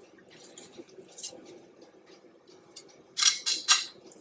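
Hinged metal garlic press being handled over a wooden cutting board as a fresh garlic clove is loaded: faint clicks, then a brief run of sharp metallic clicks and scrapes about three seconds in.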